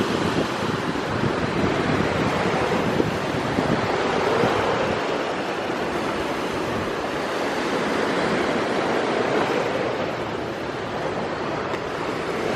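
Steady rushing noise of sea waves and wind, swelling and easing every few seconds.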